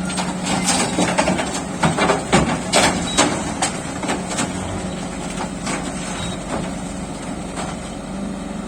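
Heavy diesel engine of construction machinery running steadily, with a series of sharp metal clanks and knocks during the first four seconds.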